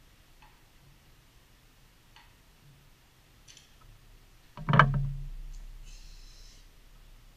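A few faint clicks, then about two-thirds of the way through a single loud thump right at the camera, with a low boom that dies away over about two seconds, as hands handle something against the surface the camera sits on.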